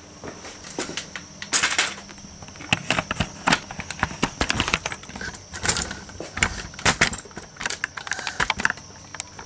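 Irregular clicks, rattles and knocks of objects being handled, coming thick and fast from about a second and a half in, over a faint steady high-pitched whine.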